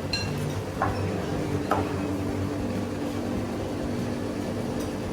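Steady low mechanical hum of a small restaurant's room tone, with two brief clinks about one and two seconds in.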